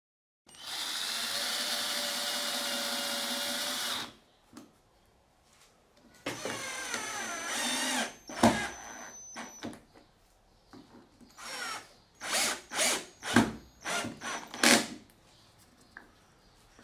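Cordless drill-driver running in several trigger pulls. First comes a steady run of about three and a half seconds. A second run about six seconds in wavers and drops in pitch under load as a screw is driven into plywood, and a string of short bursts follows near the end.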